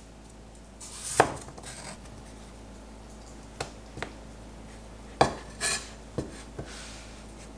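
Chinese cleaver slicing a peeled potato on a wooden cutting board: a few separate knocks of the blade meeting the board, unevenly spaced, the loudest about a second in and about five seconds in.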